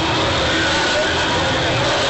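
Steady crowd chatter filling a basketball arena, many voices blurred together into a continuous murmur.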